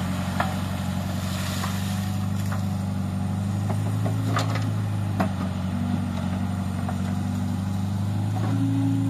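Tractor backhoe loader's diesel engine running steadily as it digs, with a few sharp knocks. Near the end the engine note gets a little louder and higher.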